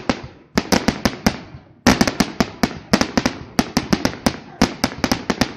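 Fireworks going off: many sharp bangs and cracks in quick, irregular succession, with a brief lull about a second and a half in before a dense run of cracks.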